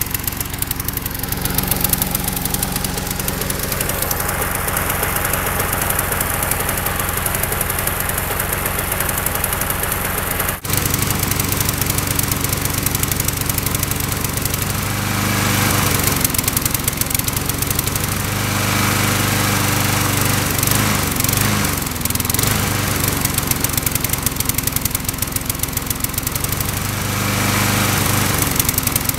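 Yard-Man walk-behind lawn mower's small single-cylinder engine running smoky on octane booster as fuel, with octane booster in its oil. It runs steadily, drops out very briefly about a third of the way in, then its speed surges up and down several times.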